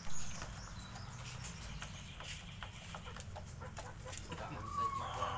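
A hen in a wire cage making soft clucking sounds as she lays an egg, with scattered light clicks over a low steady rumble. A brief thump comes right at the start.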